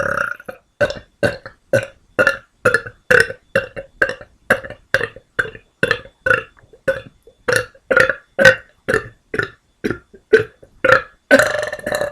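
A woman burping a long string of short, loud burps, about two a second, with a longer burp near the end.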